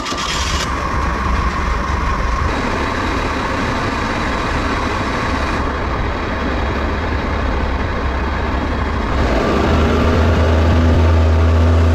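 Boat's outboard motor running steadily under way, a low engine drone under a steady rushing noise; the drone gets louder about nine seconds in. The sound changes abruptly a few times.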